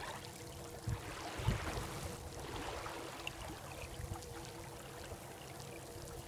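Water swishing along the hull of a Bavaria 36 sailing yacht moving slowly under sail in light wind. Two low thumps come about one and one-and-a-half seconds in, over a faint steady hum.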